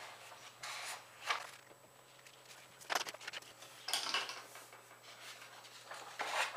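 A sheet of A4 paper being handled and folded on a cutting mat: about five short papery rustles and swishes as it is lifted, slid and pressed flat, over a faint steady low hum.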